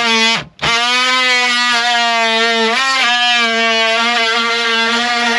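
Oscillating multi-tool running with a steady, high buzz as it cuts wood. It cuts out for a moment about half a second in, and its pitch wavers briefly about three seconds in.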